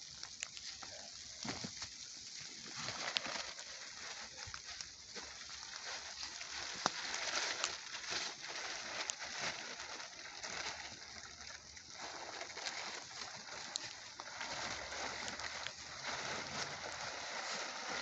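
Damp campfire being coaxed alight, smouldering with a steady hiss and many small scattered crackles and ticks.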